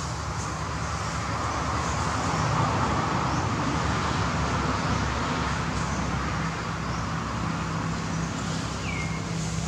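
Steady rumble of road traffic, a motor vehicle passing, swelling to its loudest a few seconds in and easing off. A single short high chirp comes near the end.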